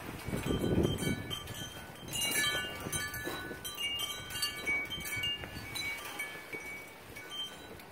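Metal tube wind chimes ringing in the wind, with scattered, overlapping high tones. A low rumble of wind on the microphone is loudest in the first second or so.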